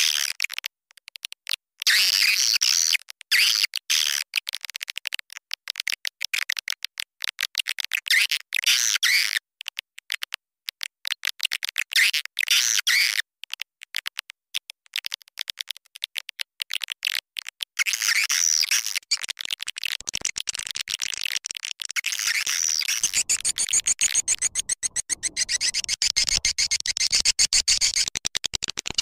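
Swiftlet lure call: a recording of swiftlets twittering, a rapid stream of high chirps and clicks broken by many brief gaps, becoming unbroken about two thirds of the way through. It is the kind of call played to draw swiftlets into a nesting house.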